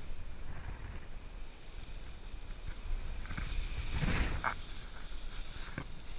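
Airflow rushing over an action camera's microphone during paragliding acro spins, with a louder surge about four seconds in and a few short rustles.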